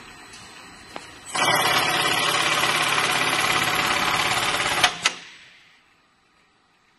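Newlong DS-9CW bag closing machine sewing crepe tape over the top of a paper bag: its stitching head runs loudly for about three and a half seconds, then stops with two sharp clicks.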